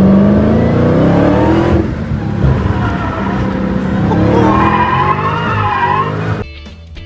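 Dodge Challenger SRT's V8 heard from inside the cabin under hard acceleration: the engine note climbs, drops at a gearshift about two seconds in, then climbs again while the tyres squeal through a corner. About six seconds in it cuts off abruptly and quieter music takes over.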